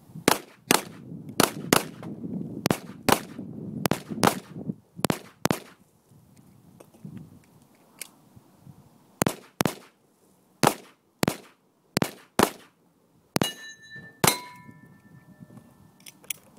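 Pistol shots fired in quick pairs, each pair about half a second apart: five pairs, a pause of about three seconds, then three more pairs. Two last single shots are each followed by a metallic ringing that lingers, typical of rounds striking hanging steel plate targets.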